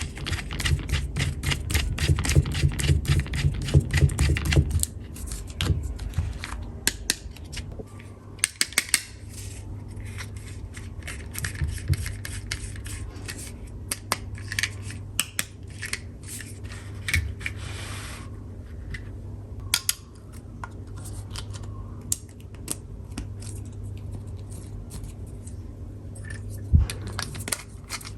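Plastic toy tools being handled and clicked. A dense run of rapid clicking over a low buzz fills the first five seconds or so, then come scattered sharp clicks, taps and brief scrapes.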